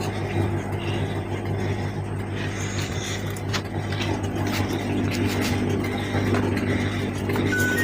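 LG front-loading direct-drive washing machine running with a steady low hum and scattered light clicks. A short electronic beep from its control panel comes near the end.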